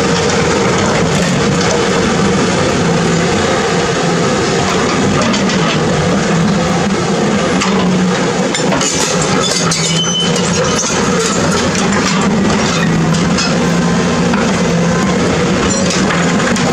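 Cat 320D excavator's diesel engine running steadily at working revs, with a stretch of clattering rock and soil about halfway through as the bucket works the rubble.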